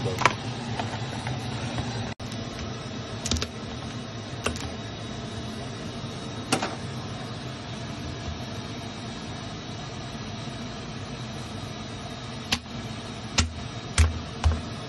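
A cleaver chopping mud crabs on a chopping board: scattered sharp chops, several coming close together near the end with a deeper thud of the board, over a steady background hum.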